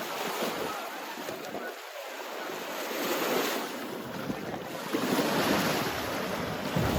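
Sea waves washing onto a sandy beach, the surf swelling twice.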